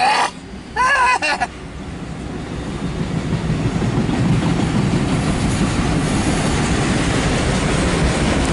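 Loaded autorack freight train rolling past, heard from inside a car: a steady noise of wheels on rail that grows louder over the first few seconds, then holds.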